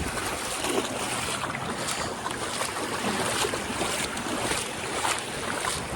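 Wind buffeting the microphone over shallow water lapping at the shore, a steady rushing noise with a few faint splashy ticks.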